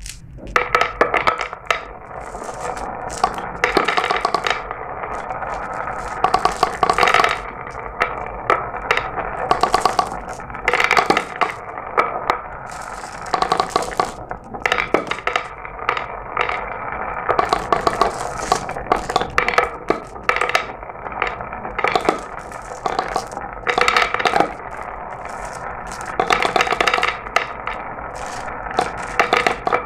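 Glass marbles rolling and clattering along a marble run, a continuous rolling rattle broken by dense rapid clicks as they knock against the track and each other, with louder clusters every second or two.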